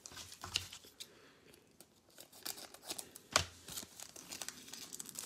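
Foil wrapper of a basketball trading card pack crinkling and tearing as it is opened by hand, in irregular sharp crackles and rustles, the loudest about three and a half seconds in.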